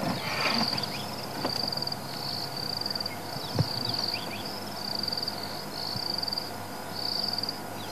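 Insect chirring in steady high-pitched pulses, about one a second, with short calls from birds sliding down in pitch and a single dull thump a little over three seconds in.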